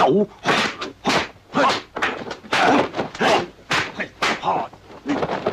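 Fight sound effects from a kung fu film: a rapid run of punch hits and swishes, about two a second.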